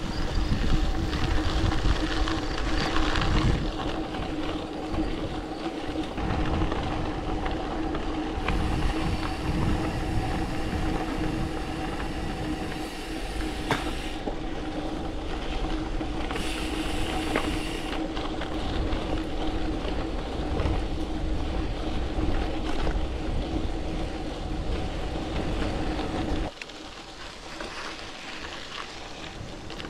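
Gravel bike rolling at speed: tyres crunching and rattling over the gravel road with wind buffeting the bike-mounted microphone, under a steady hum. The low rumble drops away suddenly near the end.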